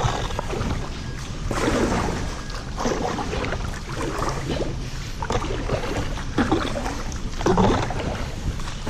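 Canoe being worked through river water: irregular splashing, swishing strokes about every second or two, over a steady low rumble.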